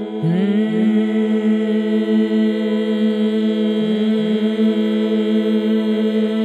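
Sustained vocal toning: one steady, held sung tone, meant to make the whole body vibrate, with new tones sliding up in pitch to join it a few times, once just after the start and twice around four seconds in.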